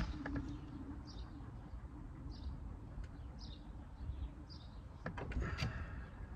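A bird calling in the background, a short high note repeated about once a second, over a low steady outdoor rumble; a few clicks and rustles near the end.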